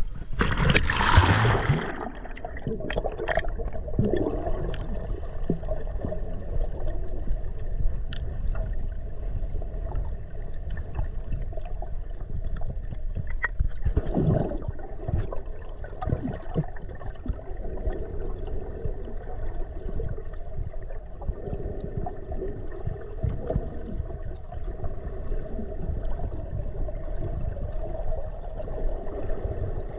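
A splash of entry into the water about a second in, then muffled underwater sound: gurgling and bubbling over a steady low rumble, with scattered soft pops.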